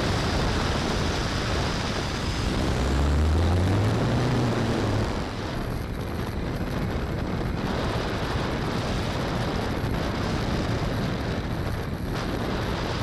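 Steady rushing air noise, with a low hum that swells and rises slightly in pitch about three to five seconds in.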